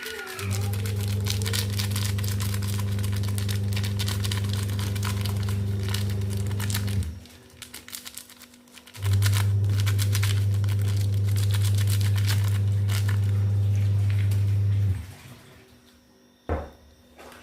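A low, steady electric hum that runs for about six seconds, stops for about two, then runs for another six seconds before cutting off. A dense crackling of small clicks goes on while it runs.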